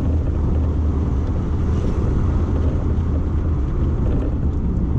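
Toyota MR2's turbocharged 3S-GTE four-cylinder engine running steadily while driving, heard from inside the cabin together with road and tyre noise.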